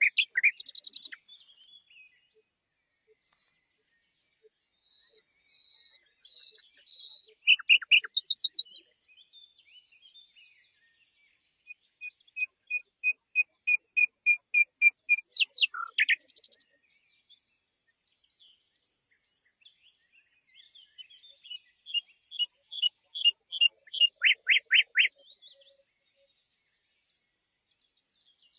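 Common nightingale singing in separate, varied phrases with pauses of a few seconds between them, including a long run of repeated whistled notes near the middle.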